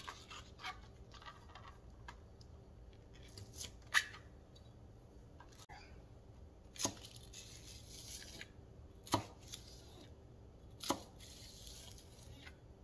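A knife chopping green onions on a plastic cutting board: a few sharp, separate cuts a couple of seconds apart.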